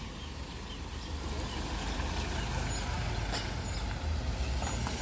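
Road traffic noise: a steady low rumble of motor vehicles running nearby.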